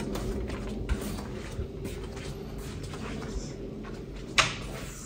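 Someone walking through a doorway into a small room: light footsteps and handling knocks over a steady low hum, then one sharp thud of a door shutting about four seconds in.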